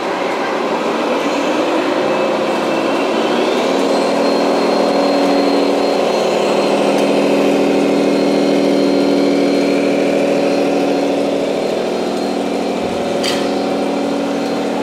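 Electronic engine-sound module of a radio-controlled Scania model truck playing a diesel engine, rising in pitch over the first few seconds as the truck pulls its loaded low-loader away, then running steadily.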